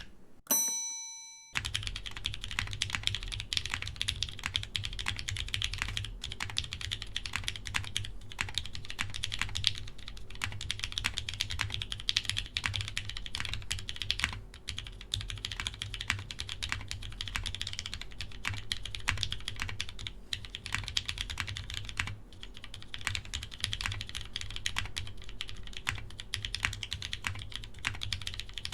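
Fast, continuous typing on an Ophanim custom mechanical keyboard: dense key clacks, each with a deep low thock. About half a second in, the typing breaks for a moment while a single bell-like ding rings and fades, then the typing resumes.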